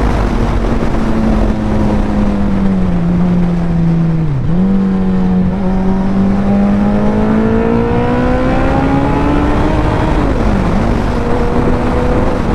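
Suzuki Hayabusa inline-four with a Racefit aftermarket exhaust running under way, heard from the rider's seat with wind noise beneath it. Its note sags and dips sharply about four seconds in, then rises steadily as the bike accelerates, dips sharply again about ten seconds in and settles.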